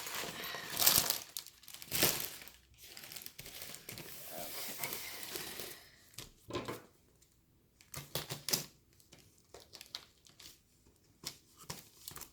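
Plastic packaging crinkling and rustling as a diamond painting kit's bags of drills are handled and put away: continuous for about the first six seconds, then sparse short rustles and clicks.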